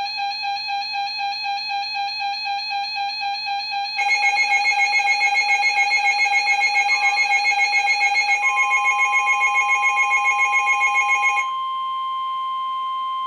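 Weather radio alert alarm: an electronic tone beeping rapidly, turning louder with a fast warble about four seconds in and stopping about eleven seconds in. The steady 1050 Hz NOAA Weather Radio warning alarm tone starts about eight seconds in and runs on under it, marking the start of a warning broadcast.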